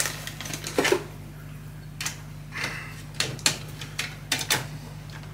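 Light clicks and taps, scattered every half-second or so, as a scale RC truck's roof rack is handled and fitted onto a hard-plastic toy body.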